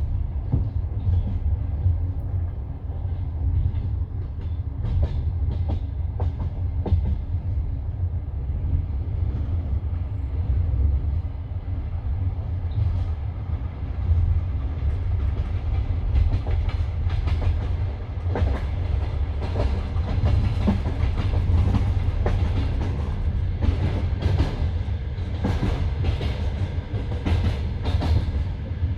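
Passenger train carriage running at speed, heard from inside: a steady low rumble with the clack of wheels over rail joints and track, the knocks coming more often in the second half.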